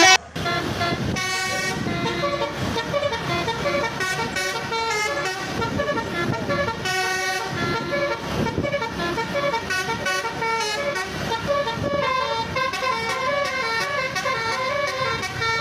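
A telolet basuri melody horn plays a tune, one note after another, over a low rumble of engine and street noise.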